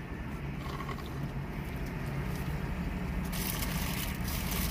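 Steady low hum inside a car cabin. From about three seconds in, a paper food wrapper rustles and crinkles as it is handled.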